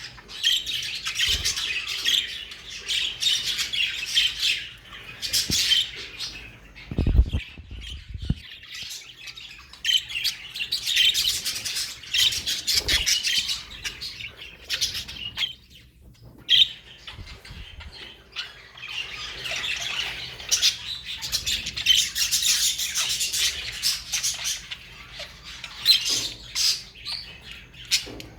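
Parrots chattering and squawking in long spells of quick, high-pitched calls, with short pauses between spells. A couple of dull thumps about seven seconds in.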